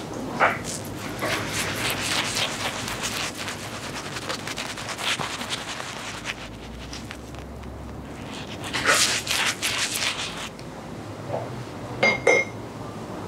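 Barber's razor scraping across a customer's stubble in a series of short, scratchy strokes, with a couple of sharp clicks near the end.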